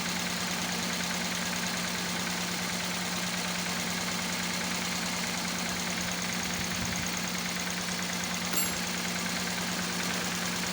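Toyota Corolla four-cylinder engine idling steadily while misfiring; the misfire is traced to one cylinder's ignition coil leaking current through its worn rubber boot. A light click near the end.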